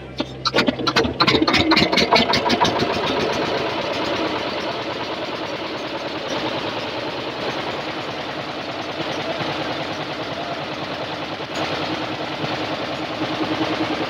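A wooden boat's hand-cranked inboard diesel engine starting. A few spaced beats in the first two seconds quicken as it catches, and it then runs with a steady rapid beat.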